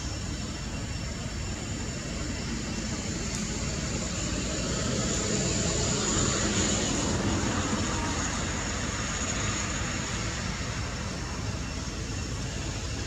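A distant engine passing, swelling for several seconds in the middle and fading again, over a steady high-pitched hum.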